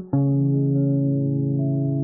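Background music on plucked guitar and bass: a new chord is struck just after the start and held.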